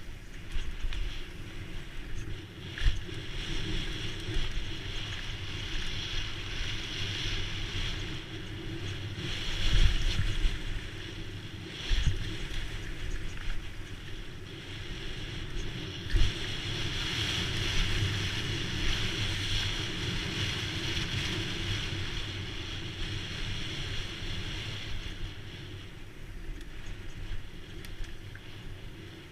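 Wind rushing over the camera microphone and knobby tyres rumbling over dirt on a fast downhill mountain-bike run, with a few sharp thumps from hits and landings on the trail.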